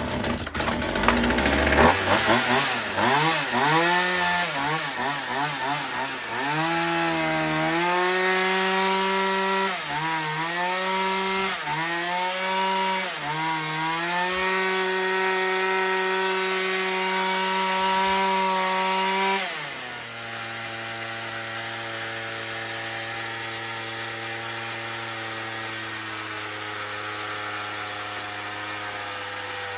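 McCulloch Mac 335 two-stroke chainsaw engine, running on a newly fitted replacement carburettor, starts and climbs in pitch, is revved up and down several times, then is held at high revs. About twenty seconds in it drops suddenly to a steady idle that is set too fast.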